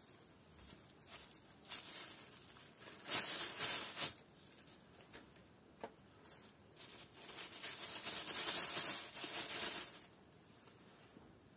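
Bread crunching and crumbling under a socked foot on a plastic bag, with the plastic crinkling. It comes in several bursts of crackling, one about three seconds in and the longest and loudest from about seven to ten seconds in.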